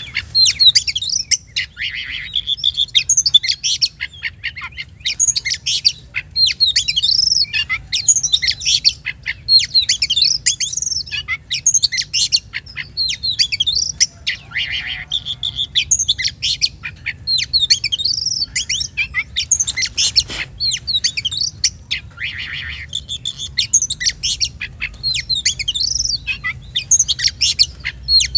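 Oriental magpie-robin (kacer) singing continuously in a rapid, varied stream of whistles, chirps and harsh rasping notes.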